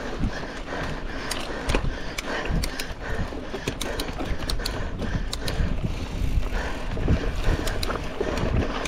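Mountain bike being ridden fast over a dirt trail: tyres rolling on dirt and gravel, with steady rattling and sharp knocks from the bike over bumps, and wind on the microphone.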